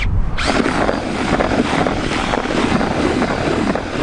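Cordless drill spinning a whisk mixer through wet groundbait in a plastic bucket, starting about half a second in and running steadily. The bait is being mixed to work in dry crumb from the bottom of the bucket.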